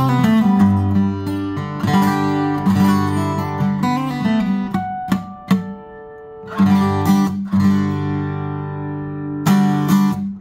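Cat's Eyes CE-400, a 1970s Tokai-built solid-top dreadnought steel-string acoustic guitar strung with 11-gauge strings, played with the fingers: picked and strummed chords ring out, with a quieter stretch of single notes midway. The strings are damped right at the end.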